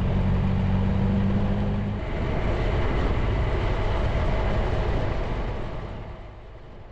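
Motorcycle engine running at a steady speed under wind and road noise. About two seconds in the engine tone drops away, leaving a rush of wind and tyre noise that fades out near the end.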